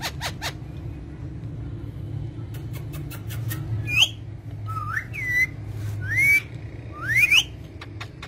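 A pet parrot gives a quick run of clicks, then four short rising whistles spaced about a second apart, over a steady low hum.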